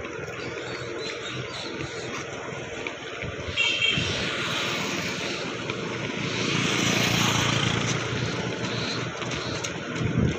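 Motor vehicle noise on a road: a steady engine and rush of air, swelling for a couple of seconds past the middle as a motorbike passes.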